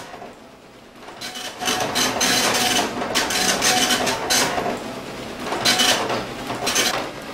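Dot-matrix impact printer printing on continuous tractor-feed paper in a run of loud, buzzing passes of the print head, each lasting a fraction of a second to about a second, starting about a second in.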